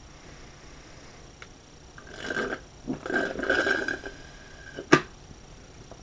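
An Australian Shepherd grumbling in two short vocal bouts, about two and three seconds in, the second longer and louder. A single sharp knock follows near five seconds.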